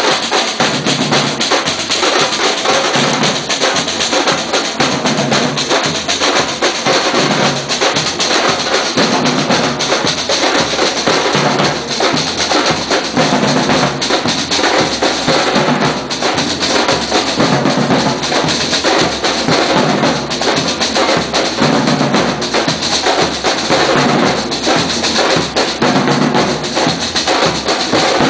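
A street drum band playing together: large aluminium surdo bass drums struck with padded mallets and snare drums played with sticks, in a loud, continuous rhythm.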